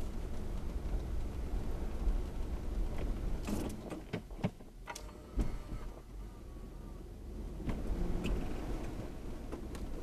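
Lexus GX470's V8 engine heard from inside the cabin, crawling through deep, crusty snow: a low running rumble, with a cluster of sharp knocks and crunches a few seconds in while the engine eases off, then the engine pulls again near the end.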